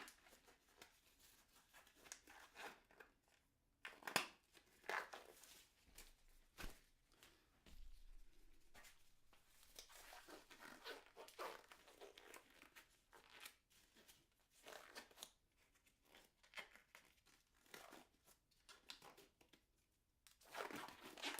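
Faint, intermittent rustling and crinkling with small knocks, from gloves being pulled on over the hands.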